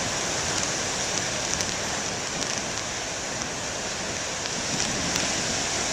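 Steady hiss of ocean surf washing up on the beach, with a few faint light ticks over it.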